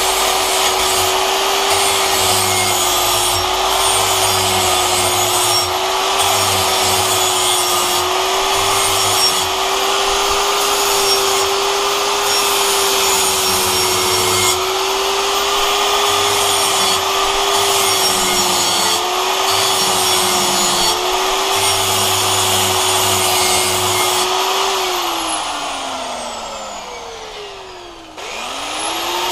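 Electric angle grinder with a flap disc grinding the cutting edge of a steel lawn mower blade to sharpen it: a steady motor whine under the rasp of the grinding. About 25 seconds in the grinder is switched off and winds down with a falling whine, then it is switched back on near the end and spins up again.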